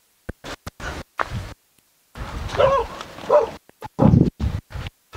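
A dog barking a few times from about two seconds in, each bark short and pitched, after a series of short crunching sounds like footsteps on debris.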